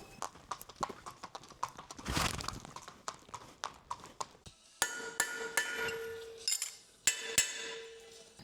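A horse's hooves clip-clopping in a run of sharp separate knocks. From about halfway through come a handful of ringing metal clanks.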